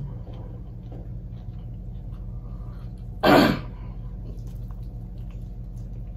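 A single short, forceful cough from a person about three seconds in, over a steady low hum.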